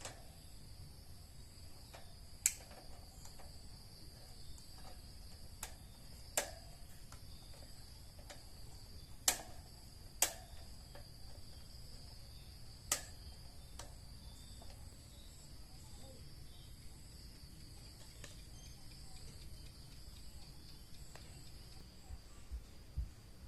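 Steady high-pitched chirring of insects, with about half a dozen sharp clicks or taps scattered through.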